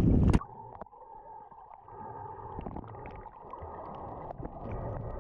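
Surface wind and water noise cuts off suddenly just after the start as the microphone goes under water, leaving muffled underwater gurgling with a few faint clicks.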